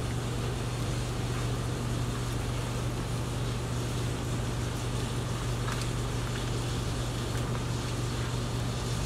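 Steady low mechanical hum, like air-conditioning running, with a few faint knife scrapes as meat is cut from the bone.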